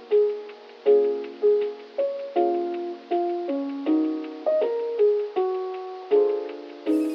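Background music: keyboard chords struck about twice a second, each note fading before the next.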